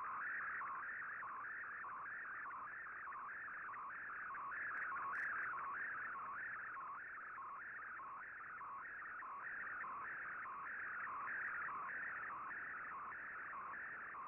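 Shortwave Radiogram digital picture transmission on an Icom IC-R8600 receiver: a warbling data tone that slides up and down between a lower and a higher pitch about twice a second, as Fldigi draws an image line by line, over a faint hiss.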